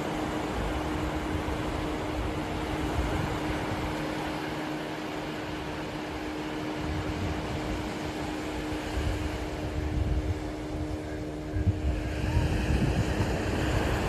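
Surf washing onto a sandy beach under a steady motor hum, which fades out near the end. From about twelve seconds in, gusts of wind buffet the microphone.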